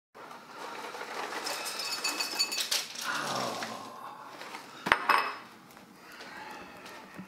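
Light clinking and clattering, with a sharp knock about five seconds in.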